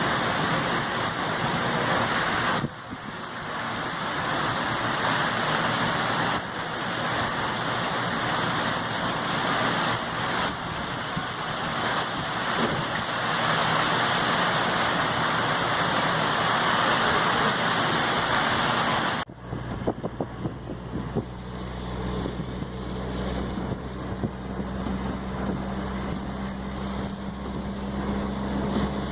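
Storm wind rushing loudly, cut by a few abrupt breaks. About two-thirds of the way through it changes suddenly to quieter wind over a steady low hum.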